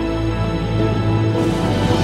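Background music of sustained chords, changing about a second in.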